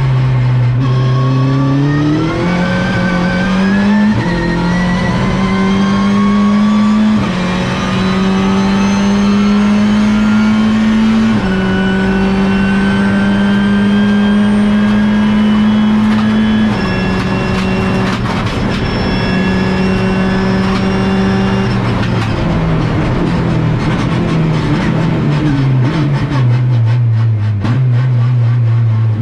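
In-cabin sound of an Opel Astra TCR race car's turbocharged four-cylinder engine under full load. The pitch climbs through the upshifts in the first part, holds high on the straight, then drops in several steps over the last third as the car slows and downshifts.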